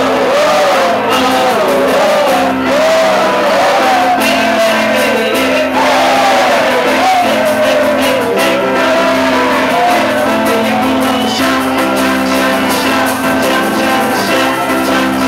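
Live piano-bar music: a singer belting a song over a piano, with shouts from the crowd.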